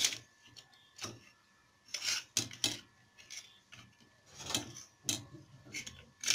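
Old steel kitchen knives being shifted by hand on a stone worktop, their blades and handles scraping and knocking against each other and the surface in a series of short, irregular scrapes and clicks.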